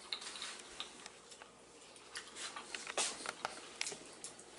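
A few faint clicks and light taps of a metal spoon against a ceramic bowl, with more of them in the second half, over quiet room hiss.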